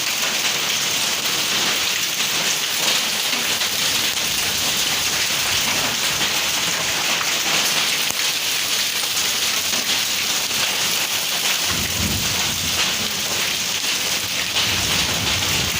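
Heavy rain pouring steadily in a thunderstorm. About twelve seconds in, a low rumble of thunder rolls in for a few seconds.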